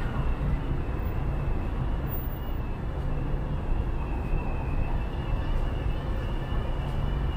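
Steady low rumble of city street traffic, with a faint high whine running through it.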